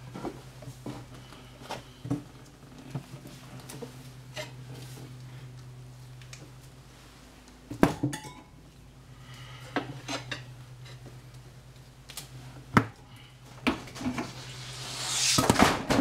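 Steel tire levers clinking and knocking against a motorcycle wheel rim as a front tire is levered onto it, several sharp metal knocks over a steady low hum. A rising hiss comes in near the end.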